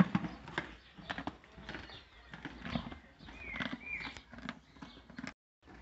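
Donkeys eating dry grain from a wooden feed trough: irregular crunching, knocks and shuffling as they chew and nose the feed. The sound cuts off abruptly near the end.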